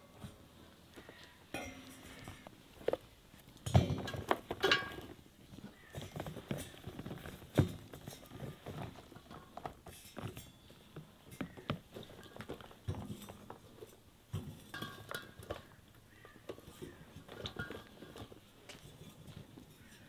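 Vegetables being set by hand onto the metal trays of a tiered rack: irregular soft knocks, taps and metal clinks, the loudest about four seconds in.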